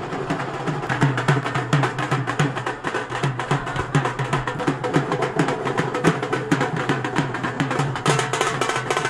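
Several dhol drums beaten with sticks in a fast, steady rhythm.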